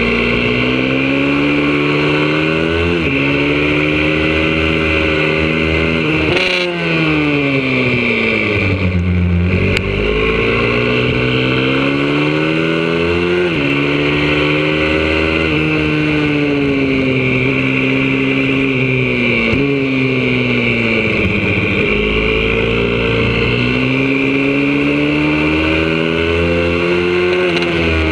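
YCF 125cc four-stroke single-cylinder pit bike engine heard close up from an onboard camera, revving hard on a racing lap. The revs climb and drop sharply at each gear change, with a long fall in revs about a quarter of the way through as the bike slows for a corner, then climb again.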